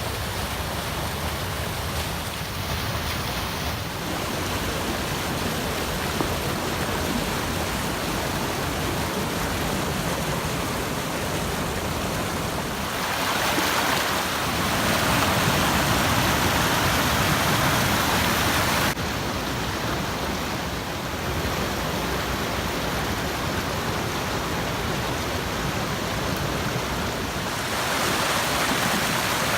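Creek water running with a steady rushing, louder for several seconds in the middle, then dropping suddenly and rising again near the end.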